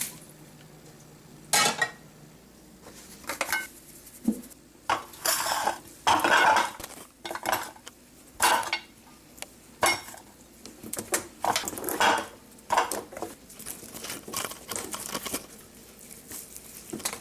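Cutlery knocking and scraping against dishes in a dozen or so short, irregular bouts.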